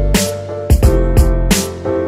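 Background music: drum hits over steady sustained bass and chords.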